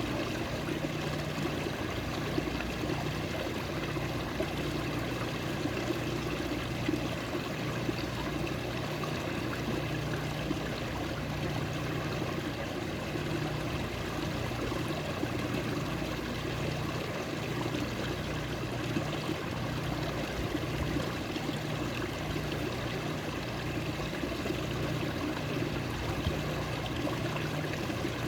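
Water running steadily, a continuous flowing and trickling stream with no breaks.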